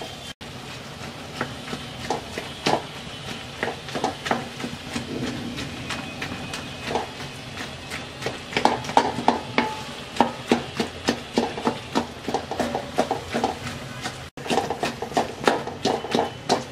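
Wooden spatula mashing and stirring thick, boiled jujube (boroi) pulp in a metal pan: repeated soft knocks and scrapes against the pan. The strokes quicken to about two or three a second from about halfway.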